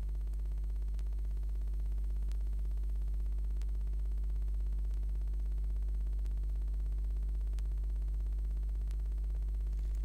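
A steady low hum, with faint clicks about every second and a quarter.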